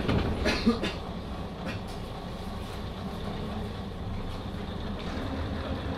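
Kanto Railway KiHa 005 diesel railcar heard from on board, its DMH17C straight-eight diesel engine running with a steady low drone. There are a few sharp clicks just under a second in, and a low steady tone joins the drone about five seconds in.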